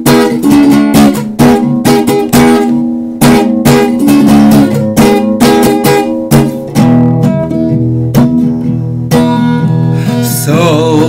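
Acoustic guitar strummed in a steady rhythm of chords as a song's instrumental intro. About seven seconds in, the sharp strokes give way to a fuller, more sustained accompaniment with a steady low line underneath.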